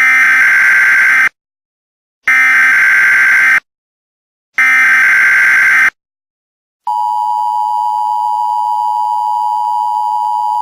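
Emergency Alert System SAME header: three bursts of data tones, each a little over a second long and about a second apart, followed about seven seconds in by the steady EAS attention tone. Together they mark the start of an emergency alert broadcast.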